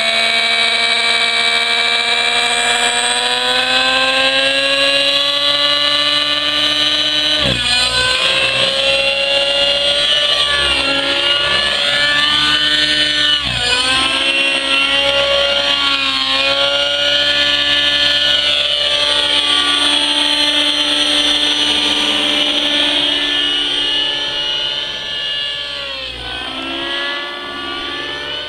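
Nitro-engine RC helicopter in flight: the glow engine and rotors give a steady high-pitched whine whose pitch rises and falls through 3D aerobatic manoeuvres. It dips sharply and recovers three times, about a quarter of the way in, halfway, and near the end.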